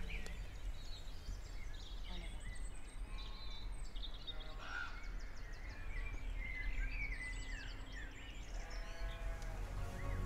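Open-hillside countryside ambience: a steady low wind rumble on the microphone with scattered small bird chirps and trills. Near the end comes a short, pitched sheep bleat.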